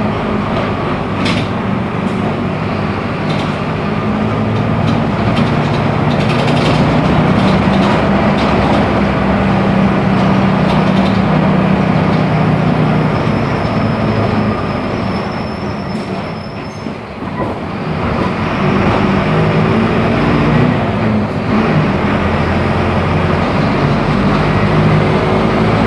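Mercedes-Benz OF-1418 bus diesel engine running while the bus drives, with a steady engine note that shifts in pitch. About two-thirds of the way through, the engine eases off for a moment, then pulls again. Occasional short clicks and rattles.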